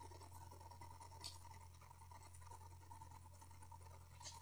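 Near silence: room tone with a steady low hum and two faint ticks, one about a second in and one near the end, as fishing hooks and sinkers are picked up off a towel.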